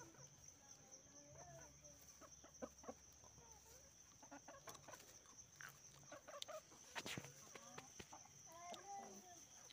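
Chickens clucking faintly on and off, over a steady high-pitched tone, with a few sharp clicks, the loudest about seven seconds in.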